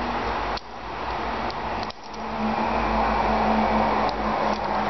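A steady rushing hiss that breaks off with a click about half a second in and again near two seconds, swelling back each time, with a low hum joining after about two seconds.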